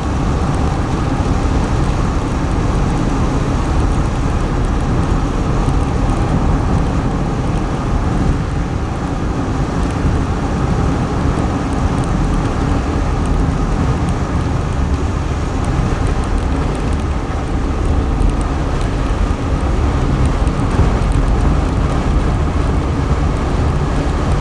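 Steady road and wind rumble of a car driving at speed, heard from inside.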